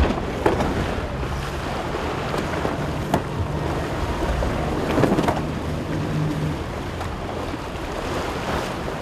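Wind buffeting the microphone and water rushing and splashing along a sailing yacht's hull while under way, with a few sharp knocks or slaps.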